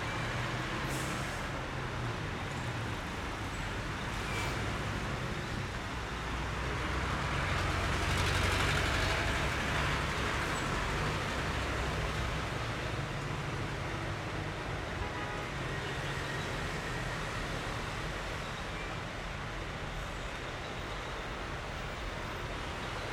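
Road traffic of heavy diesel trucks and cars moving slowly, with the steady rumble of truck engines. About eight seconds in, a vehicle passing close makes the sound swell for a few seconds.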